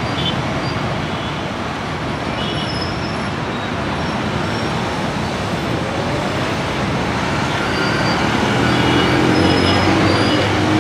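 City road traffic: a steady wash of engine and tyre noise from passing vehicles. An engine hum grows louder near the end.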